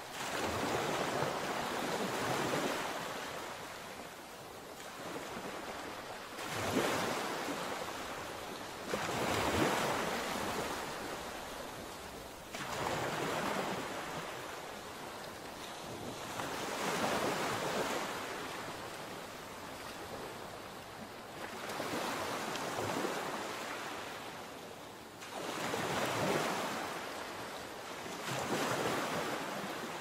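Sea surf: waves breaking and washing up a beach, the rush swelling and fading with a new surge every three to four seconds.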